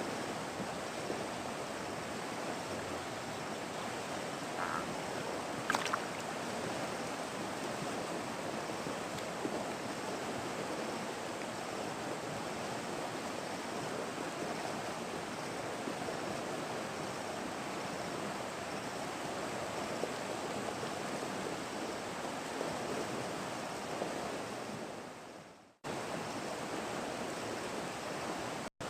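Steady rushing of flowing river water. The sound fades out about 25 seconds in and cuts out again briefly near the end.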